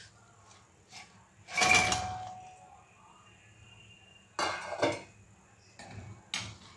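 Steel slotted spoon knocking against a metal kadhai while stirring fritters in milk. There is a ringing clang about a second and a half in, two quick knocks around four and a half seconds, and another knock near the end.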